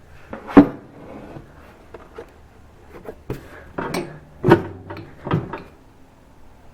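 About five separate clunks and knocks as the Hobart 5801 band saw's metal covers and panels are handled and shut, the loudest about half a second in and another strong one about four and a half seconds in.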